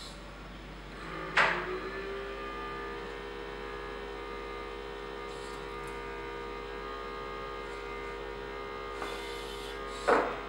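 Small vacuum pump of a desktop robot arm's suction-cup gripper: it starts with a sharp loud onset, rises briefly in pitch and then hums steadily while the cup holds the box lid. About ten seconds in, a second short loud burst comes as the suction is released, and the hum stops.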